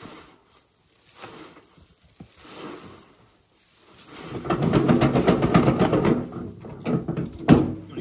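Wood chips being shovelled out of a metal wheelbarrow. A few light scrapes come first; then, about four seconds in, a dense rattling scrape of shovel and chips against the tub lasts about three seconds, followed by a sharp knock.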